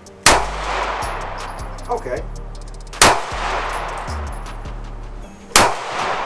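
Three shots from a Taurus G2C subcompact 9mm pistol, about two and a half seconds apart, each followed by a trailing echo.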